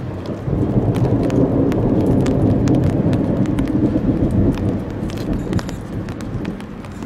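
Thunder rumbling: a low rumble swells about half a second in, holds for several seconds and fades near the end, with scattered sharp ticks over it.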